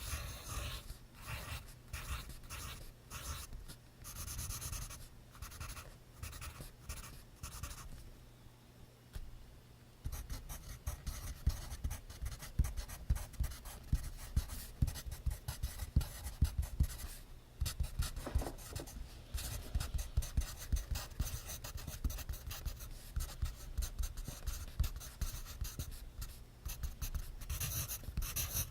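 Pencil writing on notebook paper in quick scratching strokes, pausing briefly about eight seconds in.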